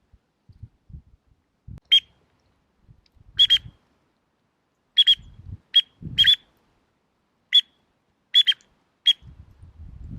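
Short, high whistled peeps, about a dozen over eight seconds, some single and some in quick pairs, with faint low knocks between them.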